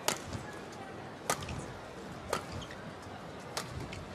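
Badminton rackets striking a shuttlecock in a rally: four sharp hits about a second apart, over a low steady hall background.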